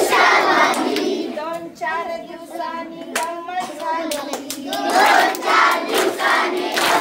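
Children's voices and hand claps in an action song. A woman's solo voice sings a line with claps over it, then the group of children's voices comes back loudly about five seconds in.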